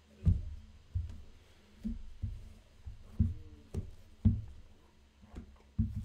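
A run of irregular dull thumps and knocks, about two a second, with a steady low hum beneath.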